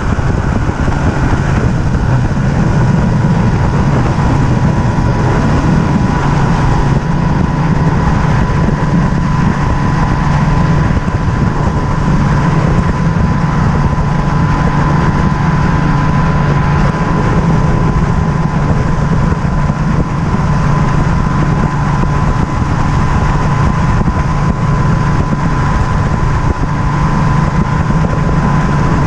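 Mercury Optimax 200 HP two-stroke outboard running steadily at speed as a bass boat planes across open water, with a steady rush of wind and water and a thin, steady whine.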